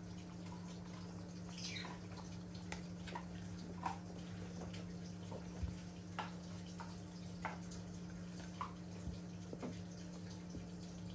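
Elderly dachshund eating soft food from a bowl: irregular wet licking and smacking clicks, a few every second, over a steady low hum.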